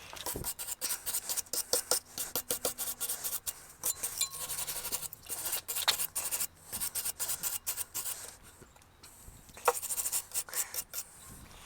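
Hand tools scraping and clicking against metal parts, a quick run of small clicks and scrapes that pauses briefly, then a sharper click and a few more near the end.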